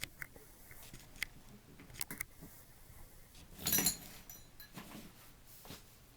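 Small clicks and taps of needle-nose pliers against the opened plastic ratchet housing while spade connectors are worked off the battery pack, with a louder short rattle about three and a half seconds in.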